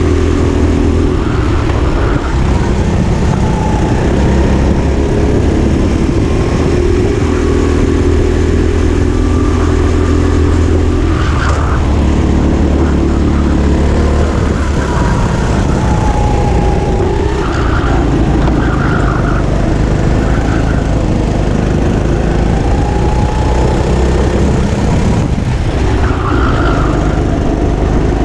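Go-kart engine heard from the driver's seat, running continuously under throttle as the kart laps the track, its note shifting as the driver accelerates and lifts for corners.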